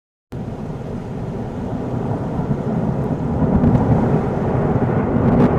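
A loud, rough rumbling noise that bursts in suddenly out of dead silence and grows steadily louder.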